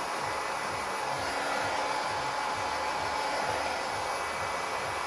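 Dexter Power heat gun running steadily, a constant rush of blown hot air, aimed at a plastic welding rod against a plastic trim panel to melt it in.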